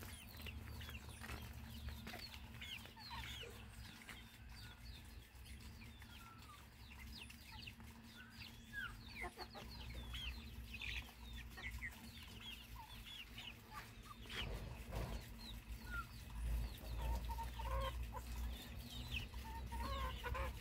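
A flock of young chickens peeping and clucking, many short high chirps overlapping throughout, over a low steady rumble.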